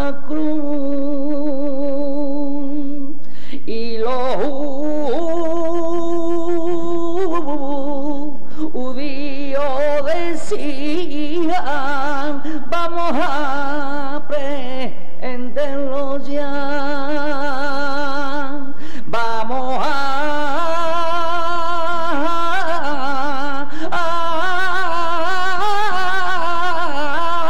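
A saeta: a lone unaccompanied voice singing long, wailing, ornamented lines, the notes held with heavy vibrato and sliding between pitches, with short breaks for breath.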